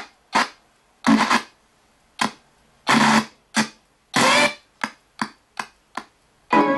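RTC ghost box radio sweeping through stations, giving out a choppy string of short bursts of radio audio, about a dozen, cut apart by brief silences. A few longer bursts carry snatches of voice- or music-like sound; the rest are quick blips of static.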